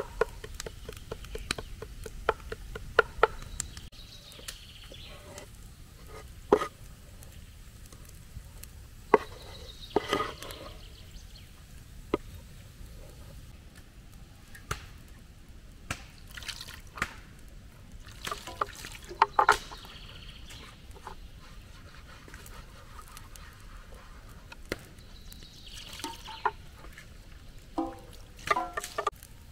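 Food being prepared by hand: a quick run of light clicks over the first few seconds, then scattered knocks and taps, with short splashes of liquid about ten, nineteen and twenty-six seconds in.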